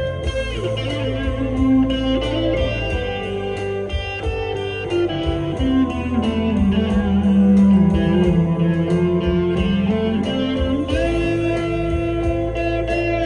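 Epiphone Les Paul Custom electric guitar playing a lead line with slides and bends over a backing with a steady beat. A long bent note dips in pitch and rises again in the middle.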